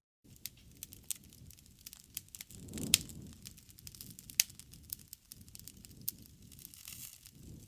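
Wood fire crackling: frequent sharp pops and snaps over a low rumble of burning flames, with one louder pop about three seconds in, after a moment's silence at the very start.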